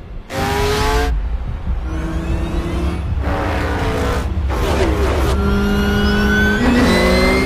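Race car engines at high revs in a pack of stock cars, heard in a run of short bursts. Their pitch rises and falls as cars pass and accelerate, over a steady deep rumble.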